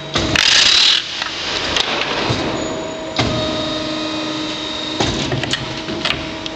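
A pallet dismantling machine's steel hooks tearing the boards off a wooden pallet: a loud cracking burst near the start, then scattered cracks and knocks of splitting wood and pulled nails. The machine hums steadily from about halfway.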